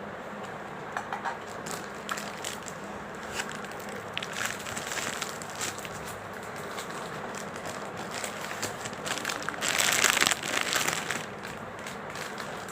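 Packaging of a replacement water-purifier filter kit being opened by hand: scattered rustles and clicks, loudest in a burst about ten seconds in.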